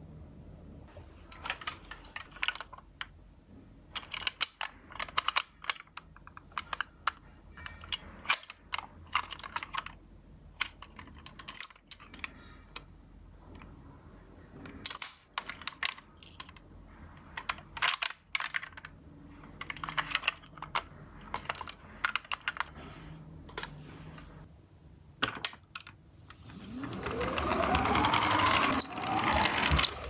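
Plastic and die-cast toy ambulances being handled, with many small clicks and taps. Near the end, a toy car's friction motor whirs for about three seconds, its pitch rising as the car is pushed along.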